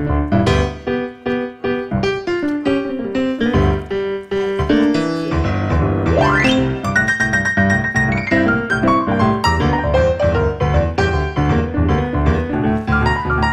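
Background music led by piano, with a fast rising run of notes about six seconds in.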